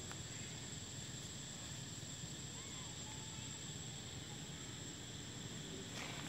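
Steady, high-pitched drone of insects over a background hiss, with a couple of faint short chirps about halfway through.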